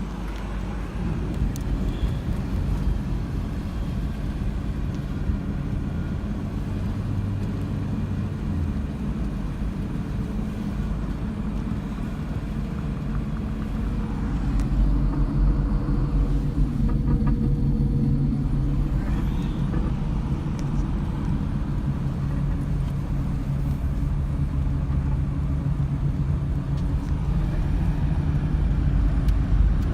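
A motor vehicle's engine running steadily with a low rumble, its pitch shifting a little now and then and growing somewhat louder about halfway through.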